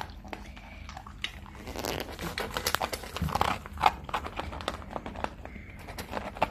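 Labradoodle eating dry kibble from a bowl: a quick run of crunches and chewing clicks, busiest about two to four seconds in.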